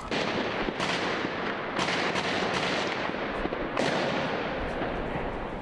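Gunfire: several sharp shots at irregular intervals, each followed by a ringing echo, over a continuous noisy din.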